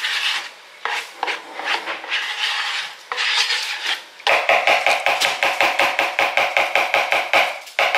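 Metal spoon scraping half-frozen whipped topping out of its plastic tub into a mixing bowl. Irregular scrapes and knocks at first, then about halfway a fast, even run of scraping strokes, about six a second.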